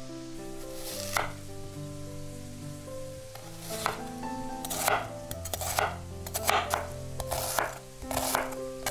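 Chopping on a cutting board: about nine sharp knocks at an irregular pace, coming closer together in the second half, over background music with held notes.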